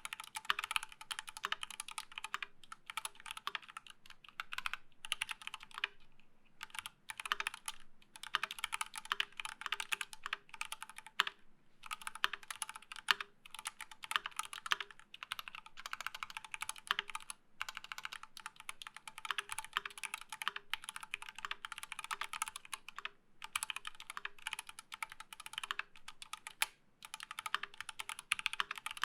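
Fast typing on a Rama KOYU Tank mechanical keyboard with an integrated plate, unlubed Everglide Coral Red linear switches and GMK doubleshot ABS keycaps. It is a run of key-press clicks and clacks with a few short pauses between bursts.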